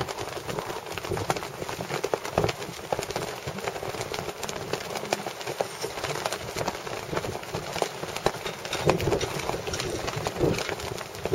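Wind rushing over the microphone and choppy water splashing against a small boat's hull, with many irregular short knocks and slaps and a few low gusty rumbles.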